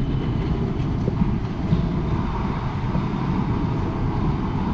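Luggage trolley wheels rolling over a hard terminal floor: a steady low rumble.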